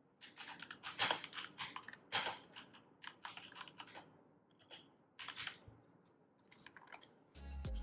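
Typing on a Keychron K2 mechanical keyboard: an irregular run of key clicks that stops about five and a half seconds in. Music starts near the end.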